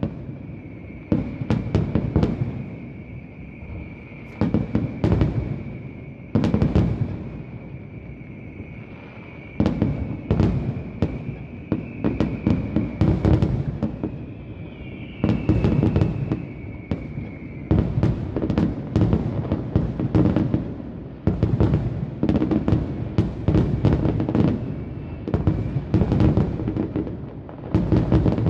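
Fireworks display: aerial shells bursting in volleys of overlapping bangs, with short gaps early on and near-continuous bursts in the second half. A high steady whistle runs through the first half.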